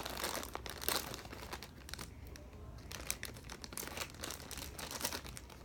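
Plastic toy packaging crinkling and crackling as it is worked at with scissors, in irregular sharp bursts, the loudest about a second in.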